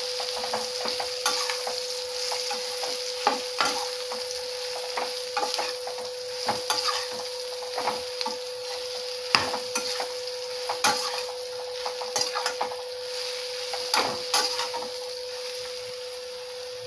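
Slotted steel spoon stirring and scraping chopped ridge gourd in a stainless steel pot, the pieces frying in oil with a continuous sizzle. Irregular metal clinks and scrapes of the spoon against the pot, over a steady hum.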